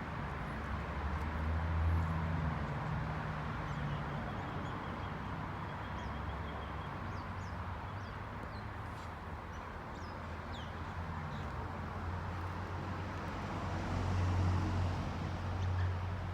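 Outdoor ambience: a low engine-like rumble that swells about two seconds in and again near the end, with scattered faint high chirps like small birds.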